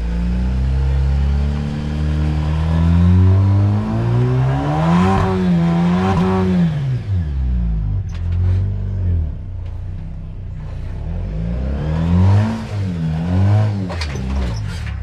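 Jeep Wrangler JL engine revving up and easing off while rock crawling, its pitch climbing and falling twice. A few sharp knocks and clatter come in the middle and near the end.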